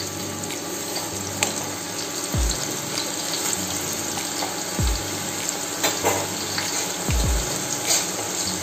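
Strips of raw jackfruit deep-frying in hot oil: a steady, dense sizzle with scattered pops and crackles. A low, falling thump recurs about every two and a half seconds.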